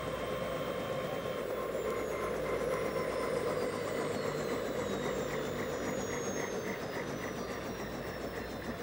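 Helicopter running: a steady drone with high whines that slide slowly down in pitch and a faint even pulsing through the middle.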